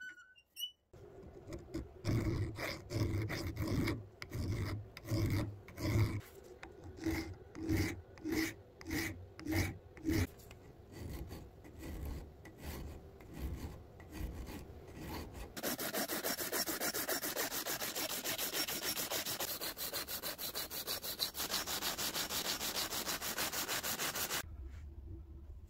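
Hand file rasping across a soldering iron's copper head, in regular strokes about twice a second. About 16 s in it gives way to fast, continuous rubbing of an abrasive cloth strip worked back and forth around the iron's metal rod, which stops shortly before the end.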